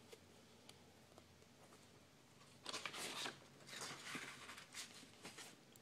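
Fingers scratching and rustling sheets of textured paper: faint at first, then irregular bursts of scratchy rustling from about halfway through.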